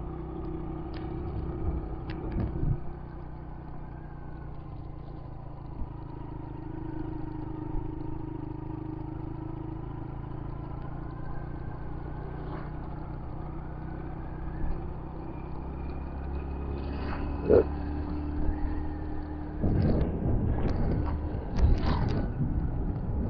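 Motorcycle engine running steadily at cruising speed, with road and wind rumble as heard from on the bike. The rumble grows louder and rougher in the last few seconds.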